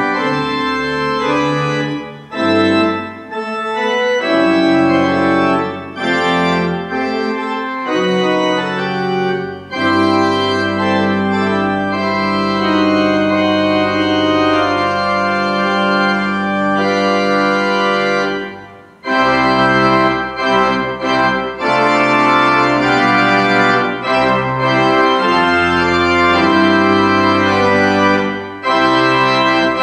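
Pipe organ playing phrases of sustained full chords, with a brief break about two-thirds of the way through.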